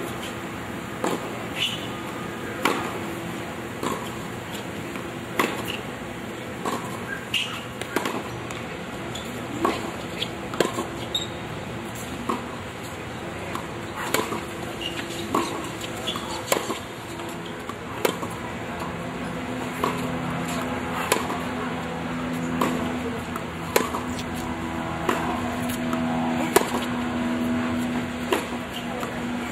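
Tennis rally on a hard court: rackets striking the ball and the ball bouncing on the court, giving a sharp pop about every second.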